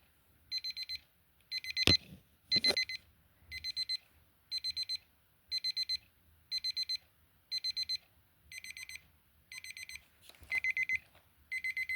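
Digital plug-in alarm clock's ascending beep alarm going off: quick groups of about four high-pitched beeps, roughly one group a second. Two sharp knocks come near the 2-second mark.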